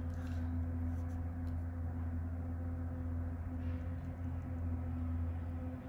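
A steady low hum holds one pitch with a couple of fainter higher tones above it, with a few faint light clicks in the first second or so.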